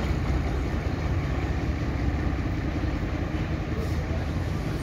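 Diesel railcar's engine running steadily as the railcar pulls past.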